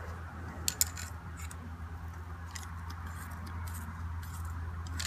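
Small hand tubing cutter being turned around a thin aluminium tube, with scattered light metallic clicks and scrapes as the cutting wheel scores it. A low steady hum runs underneath.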